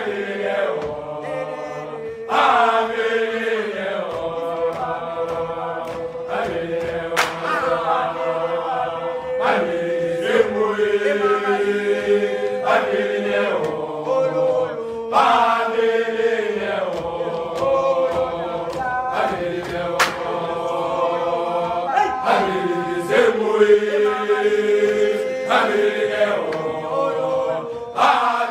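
Several voices singing a slow chant in harmony, holding long notes in short phrases that start again about every two and a half seconds.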